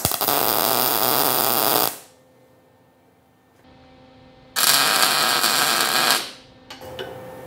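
MIG welder laying two tack welds on steel tube: two bursts of crackling arc, the first about two seconds long at the start, the second about a second and a half long, roughly three seconds later.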